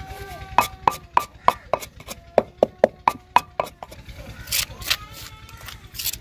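Wooden pestle pounding dried red chillies and salt in a stone mortar: about a dozen knocks at roughly three a second, each with a brief ring. The pounding stops near four seconds in, and a few softer scrapes follow as a spoon works the crushed chilli in the mortar.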